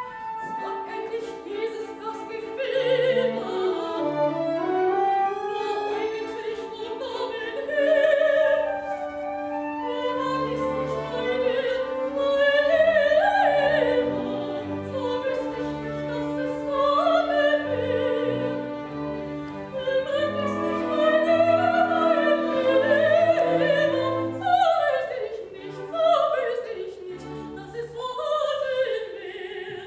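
Operatic singing with orchestral accompaniment: a singer's melody line with vibrato over sustained string and orchestra notes.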